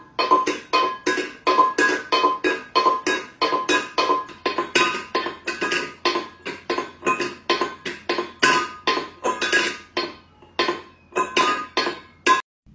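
Stainless steel bowl knocking and clattering on a tile floor as a cat pushes at it with its head. About three knocks a second, each with a short metallic ring, stopping suddenly near the end.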